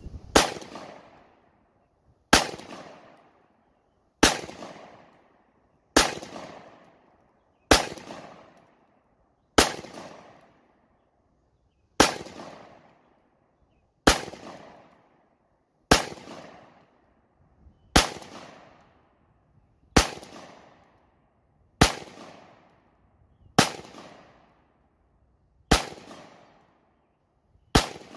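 AREX Rex Delta 9mm striker-fired pistol firing slow, aimed single shots, about fifteen in all, roughly one every two seconds. Each shot is followed by a fading echo.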